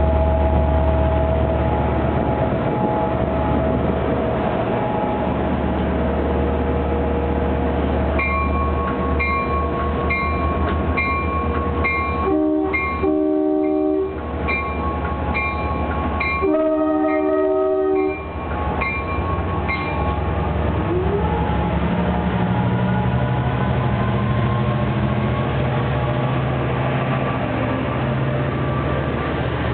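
LIRR DE30AC diesel locomotive departing. Its EMD 710 engine idles, then the bell begins ringing in steady strokes. The air horn sounds two long blasts, the departure signal. After that the engine revs up as the train starts to pull out.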